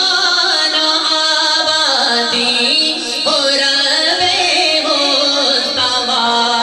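A man singing a naat into a microphone over a sound system: one voice in long, wavering melodic lines.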